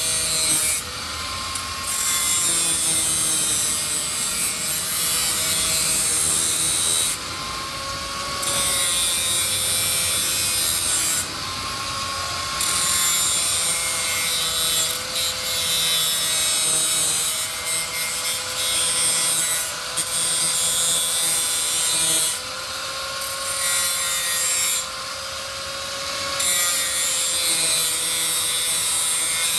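Electric angle grinder grinding the heads of door bolts round, so that a wrench can no longer grip them: a steady motor whine over gritty grinding. The grinding drops away briefly several times, and each time the whine rises a little.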